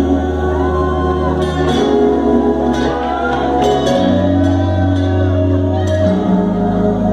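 Live electronic music played loud over a concert PA, heard from within the crowd. Long, deep synth bass notes change pitch about every two seconds under higher melodic lines.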